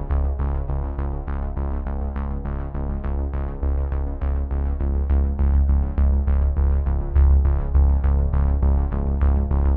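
Background music: quick repeating notes, about three a second, over a steady sustained bass.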